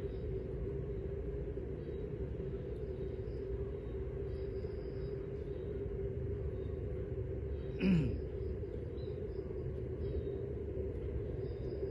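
Steady low rumble with a constant hum, and faint high chirps now and then. About eight seconds in, a short sharp sound with a quick falling low tone.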